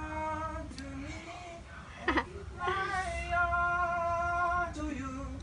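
A woman's voice singing long, held notes that step from one pitch to the next, with a short sharp clink about two seconds in.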